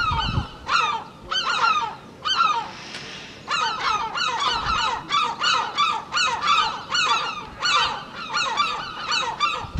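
A flock of geese honking, many short calls overlapping in quick succession.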